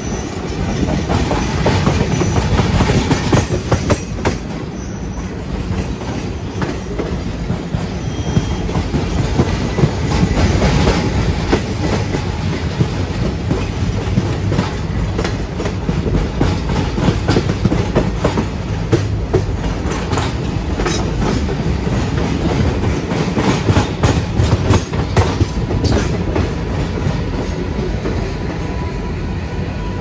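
WDG3A ALCO diesel locomotive's 16-cylinder ALCO 251 engine chugging under power, heard from the train riding behind it. Wheels clatter over rail joints throughout, with the sound swelling louder a few times.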